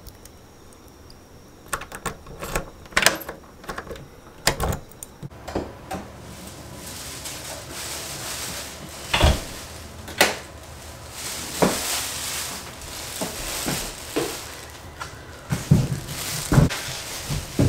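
Sharp clicks and knocks of a door lock and lever handle as a door is unlocked and opened. From about six seconds in, plastic shopping bags rustle, with a few dull thumps as they are carried in and set down.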